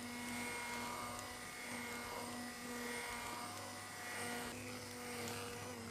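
Handheld immersion blender running steadily in a stainless steel pot of thick cooked milk pudding, a constant motor whine at one pitch. It is blending the starch-thickened custard smooth.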